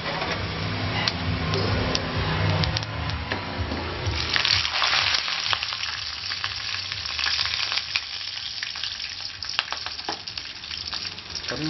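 Seeds frying in hot oil in an aluminium kadai, the tempering for lemon rice: a steady sizzle full of small crackles, swelling louder about four seconds in.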